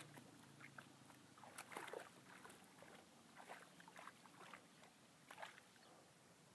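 Dog wading and splashing in shallow pond water: a few faint, irregular splashes and sloshes that stop about five and a half seconds in.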